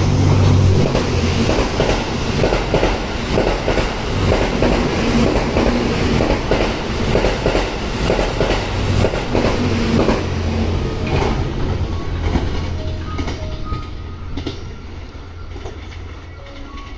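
Twilight Express Mizukaze, a JR West Kiha 87 series diesel-electric train, running past close by. A steady low drone and rumble are broken by many clicks of the wheels over the rails. The sound fades away gradually after about eleven seconds as the train moves off.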